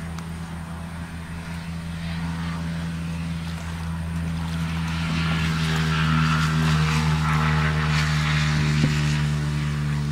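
A small engine running steadily in an even drone, getting louder about halfway through.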